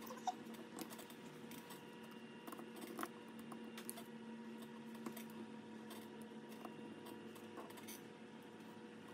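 Faint scattered light clicks and taps over a steady low hum.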